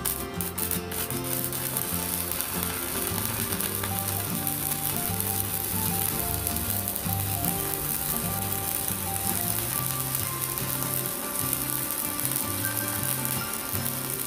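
Stick (MMA) welding arc from a cheap mini IGBT inverter welder burning a 4.0 mm electrode. A few sharp crackles as the arc settles, then a steady crackling sizzle from about a second in.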